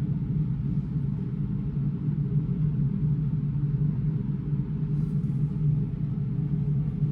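Steady low mechanical hum and rumble, unchanging throughout, with a strong low drone.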